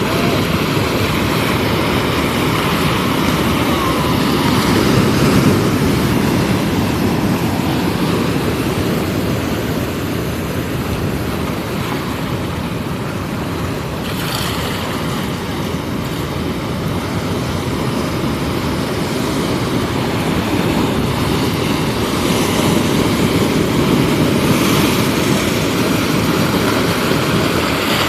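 Ocean waves breaking and washing up the beach: a steady rush of surf that swells and eases slowly.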